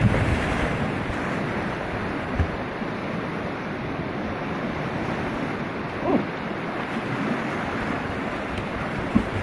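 Fast river water rushing steadily, with a loud splash at the start as a man dives in to swim.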